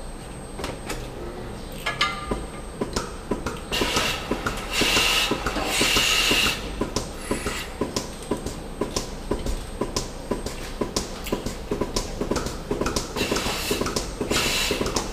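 Milking machines in a dairy parlour running, with a steady rapid clicking and two longer bursts of hissing air partway through.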